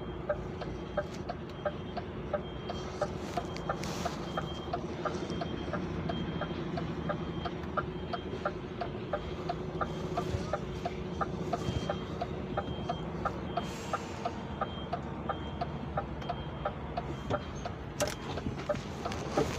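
Inside a lorry cab as the truck manoeuvres slowly: the diesel engine runs low and steady under a sharp, regular ticking of about two to three ticks a second, with a high electronic beep repeating in short runs.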